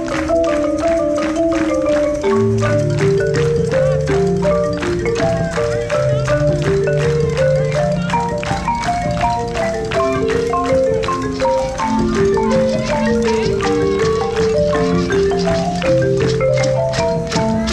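Marimba band playing a fast, busy melody of quick mallet notes, with low bass notes joining about two seconds in, over percussion keeping a steady beat.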